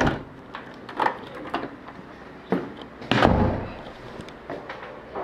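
Footsteps in sneakers on a wooden floor, a few knocks spaced about a second apart, with a louder, heavier thump about three seconds in.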